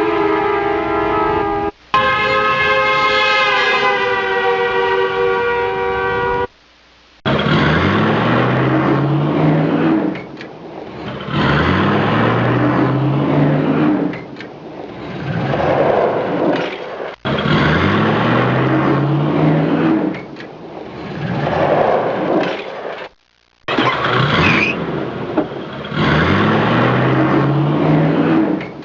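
A long horn blast, then a second steady horn tone. After a short gap, a vehicle engine revs up again and again, its pitch rising for about two seconds each time with short dips between.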